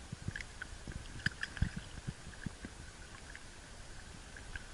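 Water sloshing against a small boat's hull, with scattered soft knocks and small clicks as fishing net is pulled off a sea turtle.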